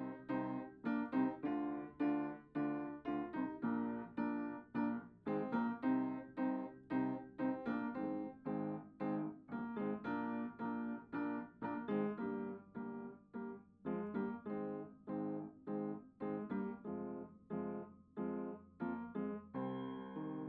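Solo piano music: an even stream of notes at about three a second, turning to more held, sustained notes near the end.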